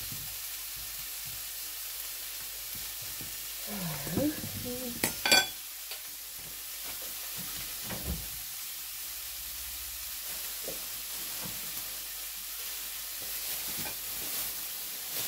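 Chops and sausages frying in a pan with a steady sizzle. Two sharp knocks, like a utensil striking the pan or a board, come about five seconds in, and a dull thump follows a few seconds later.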